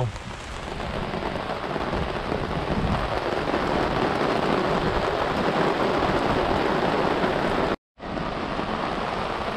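Steady rain falling on a boat and its raised canopy top, with a short gap in the sound near the end.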